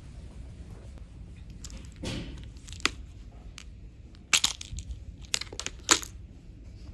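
Several sharp clicks and knocks of objects being handled, after a short rustle about two seconds in; the loudest knocks come near the end.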